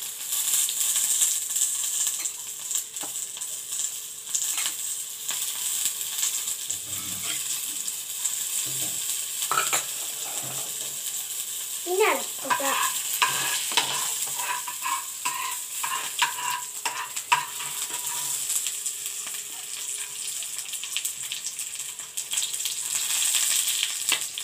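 Coconut oil sizzling in a pan with mustard seeds, curry leaves and crushed kanthari chillies frying, a steady hiss, with a spoon stirring and knocking against the pan now and then.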